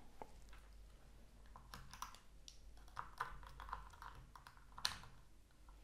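Faint clicks and handling rattles as spring alligator clips are opened and clamped onto battery terminals, the sharpest click a little before the end.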